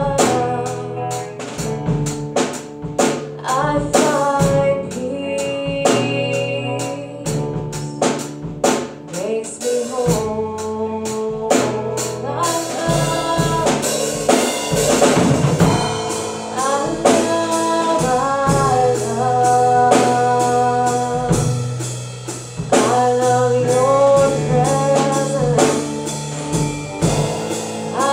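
Live worship band playing a song, with a drum kit, guitars and a woman singing the melody. A cymbal crash washes over the music about halfway through.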